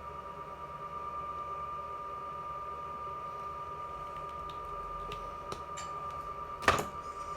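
Hand tools working on a turn-signal wire: a few light clicks and then one sharp snap near the end, over a steady high-pitched hum.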